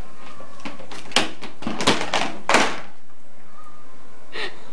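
A run of about five sharp knocks and rattles within two seconds from a plastic pet carrier on a tile floor, as the cat shut inside moves and bumps against it.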